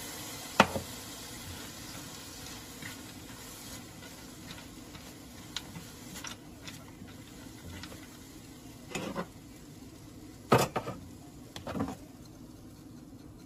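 Fox nuts and peanuts sizzling in a hot nonstick frying pan just after lemon juice went in, a hiss that fades over the first few seconds. A silicone spatula stirs them, with a few sharp knocks against the pan, the loudest about half a second in and several more near the end.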